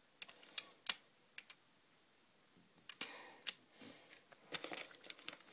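LEGO bricks being handled and fitted on a baseplate: a scattering of sharp plastic clicks, with a pause of about a second and a half in the middle.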